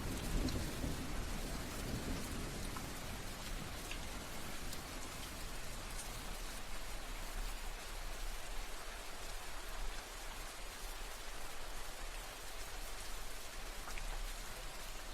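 Steady rain falling on a surface, an even hiss with scattered louder drops. A low rumble of soft distant thunder fades out in the first few seconds.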